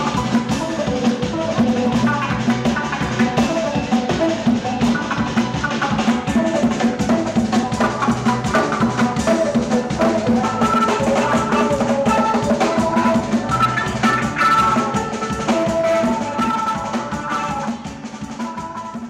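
Band music with a drum kit keeping a steady beat under other instruments, fading out near the end.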